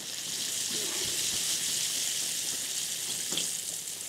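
Sardines sizzling as they fry in oil in a frying pan: a steady hiss that swells just after the start and eases a little near the end.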